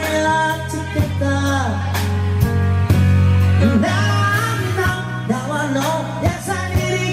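Live band playing a slow rock ballad: drum kit, sustained bass notes and keyboards, with a lead melody line gliding over them.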